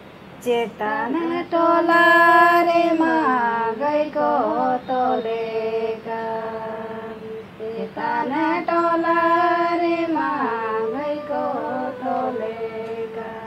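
A woman singing in long held, wavering notes, in two phrases with a quieter stretch between them.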